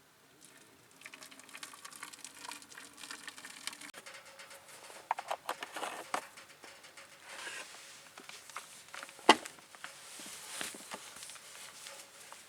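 Rustling and crinkling with many scattered light clicks, and one sharp knock about nine seconds in.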